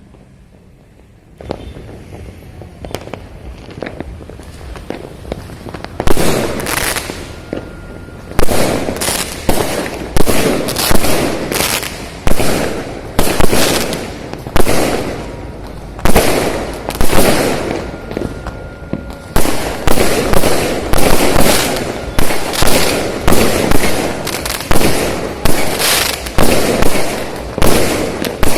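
Many fireworks going off at once across a city, bangs overlapping with crackle. A low din builds about a second and a half in, then from about six seconds in loud bangs come roughly once a second.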